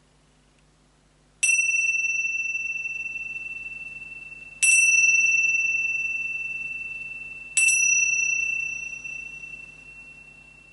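A meditation bell struck three times, a few seconds apart, each strike ringing out clear and high and slowly fading; it signals the end of the meditation.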